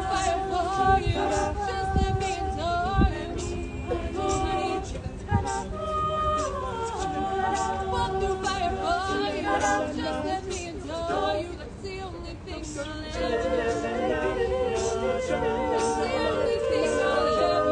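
A mixed-voice a cappella group singing in close harmony, several voice parts held and moving together without instruments.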